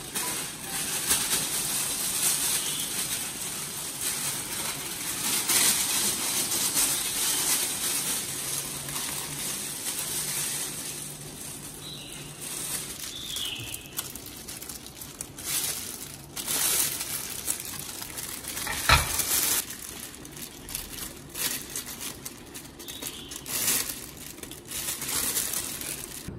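Thin disposable plastic gloves crinkling and rustling as they are pulled on and worked, then a knife cutting a mango over a ceramic plate. There are scattered clicks and one sharp knock about two-thirds of the way through.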